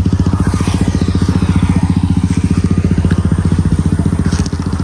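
An engine running at a steady idle, a rapid, even low throb.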